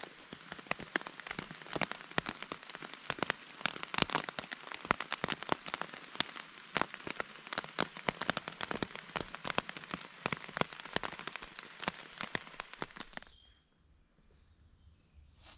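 Rain pattering on tent fabric, heard from inside the tent as dense, irregular taps. It cuts off suddenly about thirteen seconds in, leaving only faint background.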